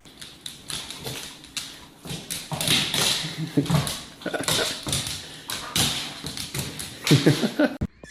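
A dog's noises mixed with a quick series of taps and thumps, like something knocking and bouncing on a hard surface; the loudest cluster comes near the end.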